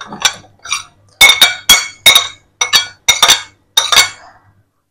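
A spoon clinking repeatedly against a dish as chicken is added to the pan: about a dozen sharp, ringing taps over four seconds.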